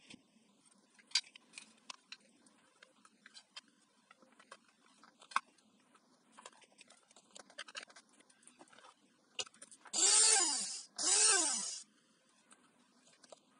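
Small clicks and knocks of a hand blender's plastic housing parts being handled and fitted together. About ten seconds in come two loud bursts, each just under a second, one straight after the other, each with a pitch that rises and then falls.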